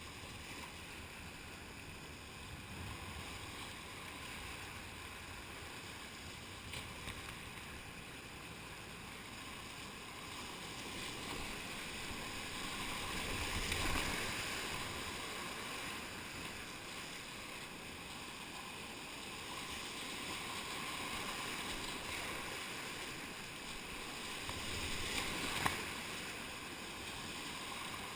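Whitewater rapids rushing and splashing around a kayak, heard up close from the boat. The sound swells to its loudest about halfway through as the bow punches through a big foaming wave, and there is one sharp tap near the end.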